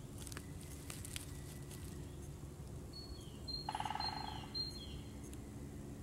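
A small songbird sings one short phrase about three seconds in: high whistled notes and quick falling slurs over a rapid trill. A steady low background hum runs underneath.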